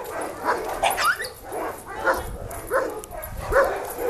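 Cockapoo barking in a rapid, repeated run, about two short barks a second.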